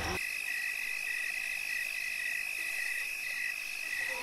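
Night chorus of frogs and insects: a steady high chirring with a pulsing call repeating about twice a second.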